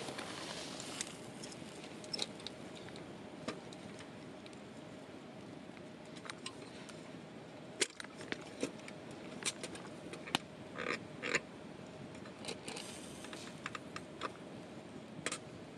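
Scattered light metallic clicks and clinks as a lit metal hurricane oil lantern is handled, fingers gripping its wire guard frame and glass globe. The clicks are sparse at first and come in small clusters over the second half.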